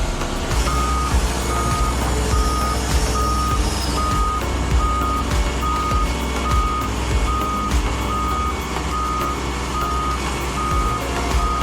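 Heavy construction machine's back-up alarm beeping, one high tone repeating a little more than once a second, starting under a second in, over a diesel engine running.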